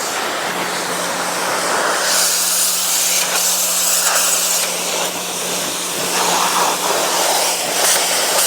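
Electric pressure washer running, a steady motor hum under the loud hiss of its water jet spraying.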